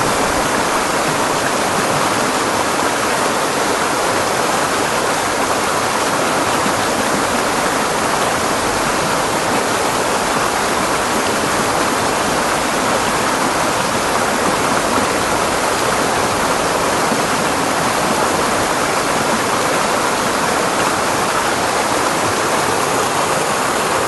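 Fast-flowing creek water rushing and splashing over boulders in small cascades, heard close up as a steady, loud rush.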